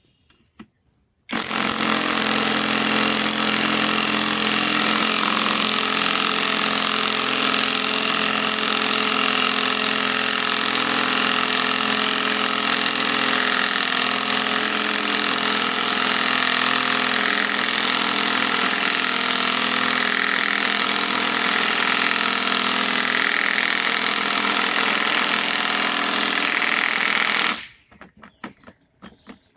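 Bauer compact impact wrench running under load, its impact mechanism hammering steadily. It starts about a second in and stops suddenly near the end, followed by a few light clicks.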